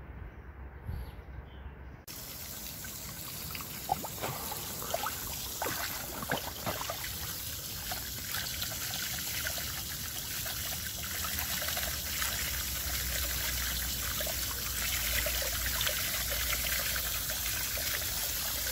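Water trickling and splashing into a shallow pond, a steady running-water hiss that starts suddenly about two seconds in, with small splashes strongest around four to eight seconds in.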